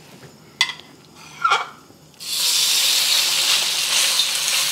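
Two light clinks, then a little over two seconds in, ground pork hits the hot oil in a steel wok and starts sizzling loudly and steadily as it sears.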